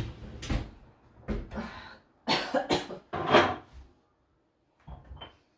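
A woman coughing repeatedly: a run of short coughs with brief pauses between them, the last two faint near the end.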